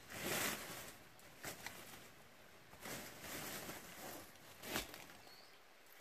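Dry wild rose brambles and dead leaf litter rustling and crackling in irregular bursts as the brush is pulled and stepped through, with one sharper crack about five seconds in.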